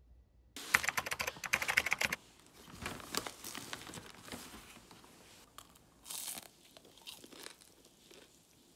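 Clear plastic bag crinkling and rustling as a hand rummages in it. The crackle is dense and loudest for about a second and a half near the start, then turns to softer scattered crinkles, with one more short burst a little past the middle.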